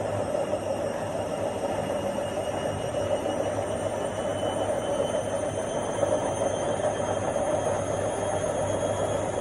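Washing machine running in its spin cycle: a steady mechanical hum with a faint high whine that slowly rises in pitch.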